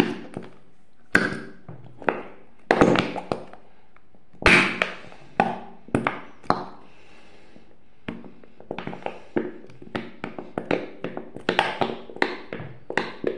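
Repeated knocks and taps on a small plastic squeeze bottle held upside down, struck to get the thick contents out. Single heavy knocks come every half second to a second at first. After a short pause about seven seconds in, a faster run of lighter taps follows.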